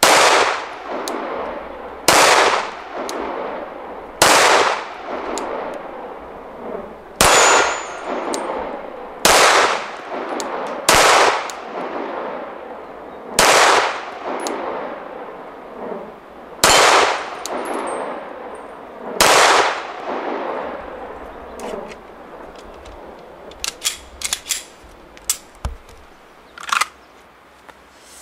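Glock 34 Gen 4 9mm pistol fired nine times in slow, deliberate shots two to three seconds apart, each shot echoing and dying away over a second or so. After the last shot come a few light clicks of the gun being handled.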